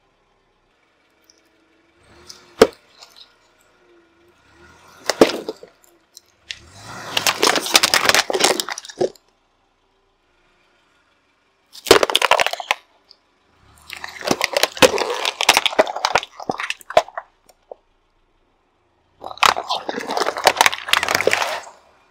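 Car tyre rolling over and crushing small plastic toys and plastic tubs of slime: separate bursts of cracking and crunching with silent gaps between, including a single sharp crack about three seconds in.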